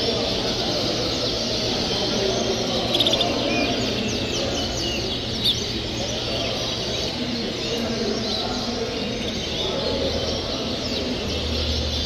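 Many caged Yorkshire canaries chirping and trilling together over a steady low background noise, with a louder burst of song about three seconds in and a single short knock a couple of seconds later.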